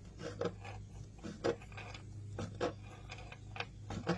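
Knife cutting through cold rotisserie chicken breast: an uneven run of short taps and scrapes, several a second, as the blade works through the firm chilled meat.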